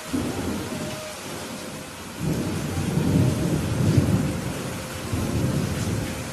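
Steady rain with thunder rumbling over it. A first peal starts suddenly and fades, then a longer, louder rolling rumble sets in about two seconds in and continues to the end.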